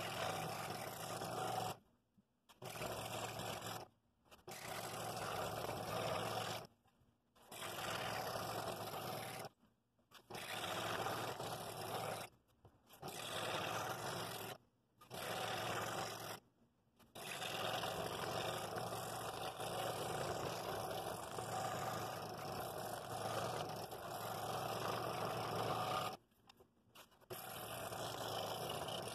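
Scroll saw running, its reciprocating blade cutting through two stacked wooden boards: a steady, even running sound that cuts off abruptly for a moment about eight times.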